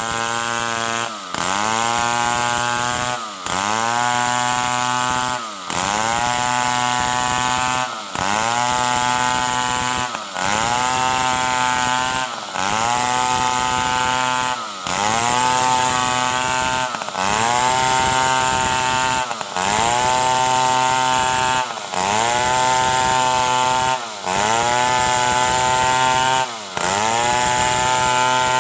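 Stihl 070 two-stroke chainsaw running at high revs through wood. Its engine note dips briefly and climbs back about every two and a half seconds, cut after cut, as boards are sliced.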